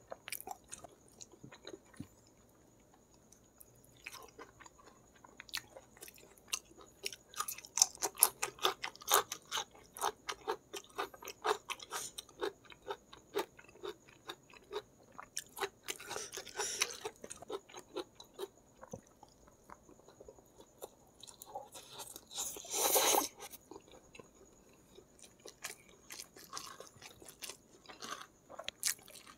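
Close-miked chewing of food, with many sharp crunches from biting crisp raw vegetables. Two short, louder noisy bursts come later, the second about three quarters of the way through.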